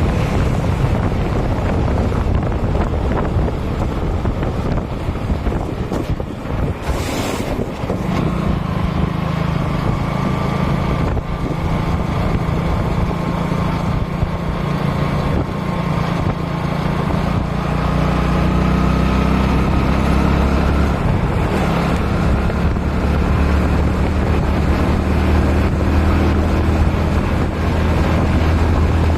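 An engine running steadily under heavy wind noise on the microphone, its low hum settling into a steady drone about eight seconds in.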